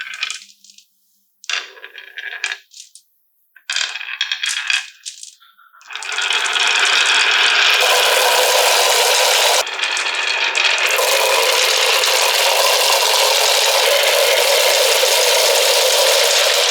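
Marbles clattering along a marble run. There are three short bursts of rattling, then from about six seconds in a loud, continuous rattle of many marbles rolling together.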